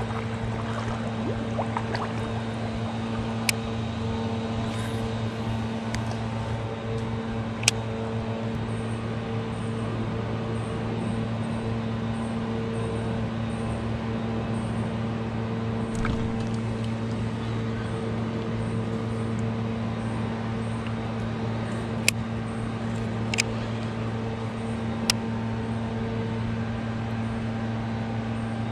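Steady low mechanical hum that does not change, with a few short sharp clicks.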